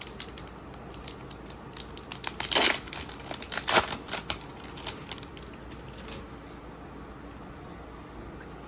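Crinkling of a foil booster-pack wrapper and clicking of Magic: The Gathering cards being handled, busiest in the first four or five seconds, with two louder crinkles in the middle, then quieter.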